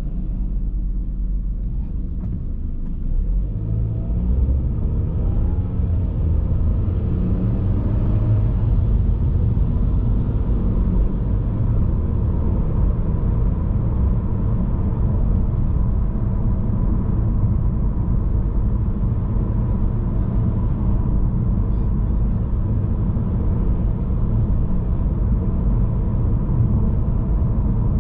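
Car driving, a steady low road-and-engine rumble. A few seconds in, the engine's pitch rises as the car accelerates, then it settles into an even cruise.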